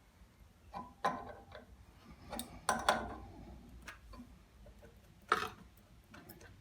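Irregular sharp clicks and knocks of metal parts and tools being handled at a workbench, about eight in all, the loudest a little before three seconds in and a little after five seconds in.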